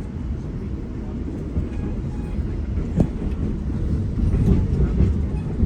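Commuter train running along the track, a steady low rumble that grows louder toward the end. A single sharp knock comes about three seconds in.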